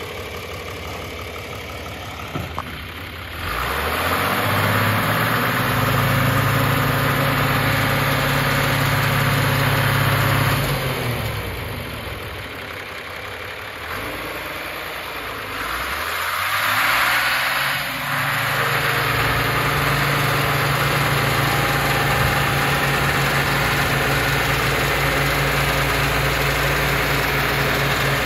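John Deere 2955 tractor's six-cylinder diesel engine running while the tractor is driven. It comes up from idle to a steady higher speed about three seconds in, drops back to idle around eleven seconds, then rises again and holds steady.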